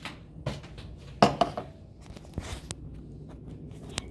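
Dishes and cutlery clattering as they are handled and set down: a few sharp clinks and knocks, the loudest a little over a second in, followed by a short shuffling noise and another click near the end.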